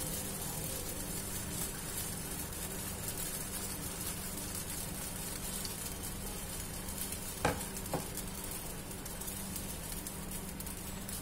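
Oreo-and-milk batter for a dora cake sizzling steadily as it cooks in a nonstick pan, bubbling up on top. Two sharp clicks come a little past halfway.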